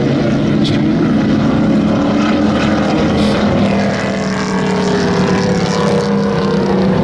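Several hobby-class pickup race trucks running hard around a paved oval, their engines at high revs. The engine notes overlap and slide slowly up and down in pitch as the trucks pass.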